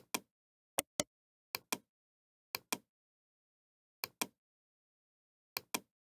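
Computer mouse button clicking: six sharp paired clicks, each a press and release, at uneven intervals with dead silence between.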